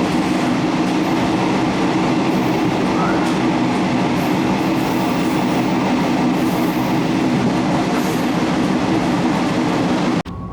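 Passenger train running at speed, heard from inside the carriage: a loud, steady rumble and rattle of the moving train. It cuts off suddenly near the end.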